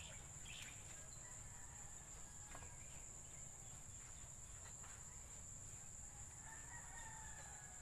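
Quiet outdoor ambience: a steady high-pitched insect drone, with a few faint clicks and rustles from handling the can and soil, and a faint drawn-out animal call near the end.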